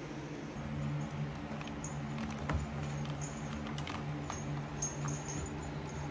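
Scattered light taps, scratches and small clicks from Ragdoll kittens pawing a plastic ball-track toy and clambering on a sisal scratching post, over a steady low hum.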